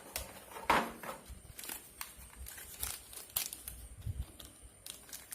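Plastic packaging crinkling, with light clicks and taps as small accessory parts are handled.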